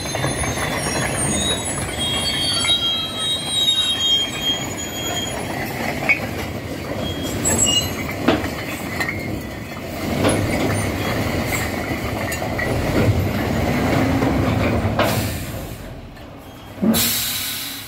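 A dump truck tipping a load of bricks: the bricks slide and clatter off the raised steel bed onto the pile, with high-pitched squealing in the first few seconds and sharp knocks here and there. The truck's engine runs underneath, rising and falling as it pulls forward; the clatter dies away near the end and one short loud burst follows.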